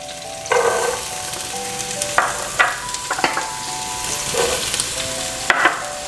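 Sliced onions sizzling steadily in hot ghee in a non-stick pot, with several short louder bursts as chopped green beans and carrot strips are tipped into the pan.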